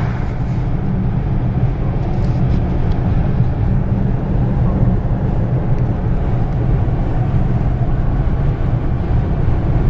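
Steady road and engine rumble inside a moving car's cabin.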